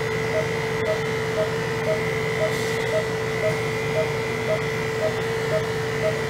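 Electric animal clippers with a #40 blade running with a steady hum as they shave a dog's abdomen. Under the hum, a short electronic beep repeats evenly about twice a second: an anesthesia monitor sounding the dog's pulse.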